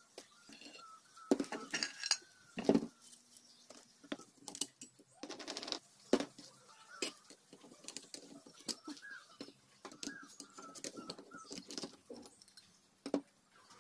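Small metal engine parts of a 100cc Super Cub-type engine clicking and clinking as they are handled during disassembly, including steel and friction clutch plates lifted out of the clutch housing. The clicks are irregular, with the loudest a little over a second in and one shortly before the end.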